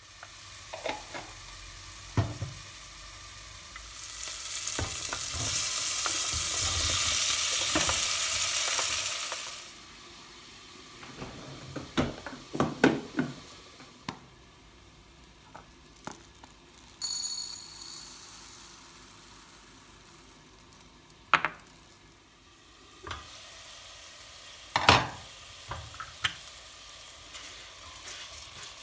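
Kitchen cooking sounds: a loud, even hiss lasting about five seconds, starting a few seconds in, then scattered knocks and clinks of utensils against pans and dishes.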